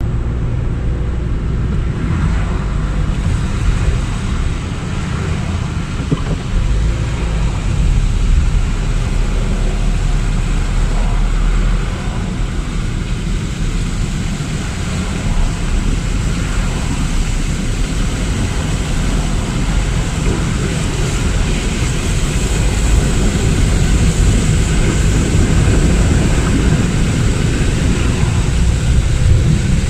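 Steady road noise of a car travelling on a rain-flooded motorway, a continuous rumble with a hiss of tyres and water over it.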